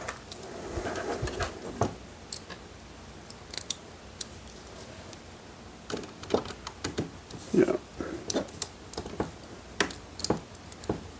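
Small metal clicks and taps of screws and a screwdriver being handled and worked on a metal robot-arm plate. The clicks are irregular and come more often in the second half.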